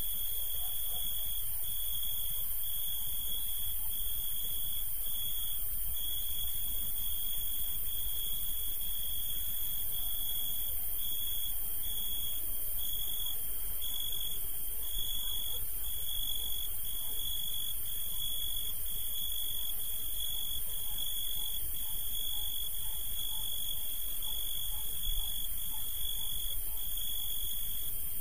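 A continuous high-pitched tone that breaks off briefly about every second, over a steady hiss.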